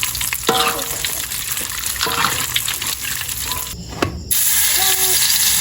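Food sizzling in a frying pan, a steady hiss that drops out briefly about four seconds in and comes back louder, with short bits of voice over it.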